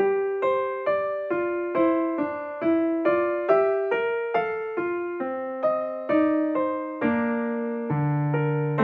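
Background music: a gentle keyboard melody in a piano sound, with notes struck at an even pace of about two a second, each fading away.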